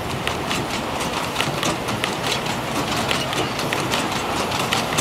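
Wheels of a 7¼-inch-gauge miniature railway's passenger carriages rolling past, clicking over the rail joints in a quick, uneven run, about three clicks a second over a steady rumble.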